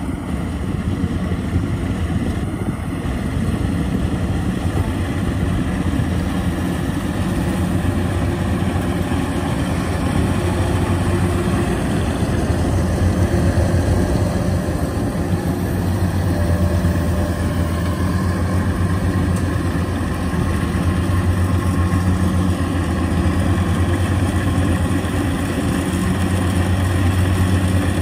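Diesel engine of a tracked rice-harvesting machine running steadily under work, a deep drone that swells slightly a few times.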